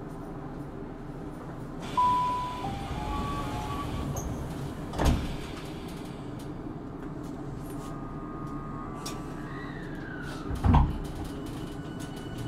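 Cabin sound inside a Tokyu 5000 series electric train: a steady low rumble with short stepped electronic tones about two to four seconds in. Two heavy thuds come about five and eleven seconds in, and a steady whine comes in near the end.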